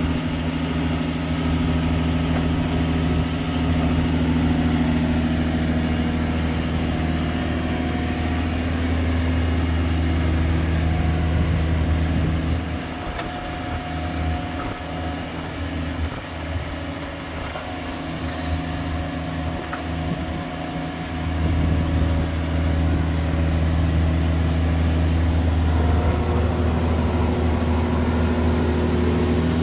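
Diesel engine of a Vermeer Navigator horizontal directional drill running steadily with a deep hum. It goes quieter for about eight seconds midway, then comes back up to its earlier level.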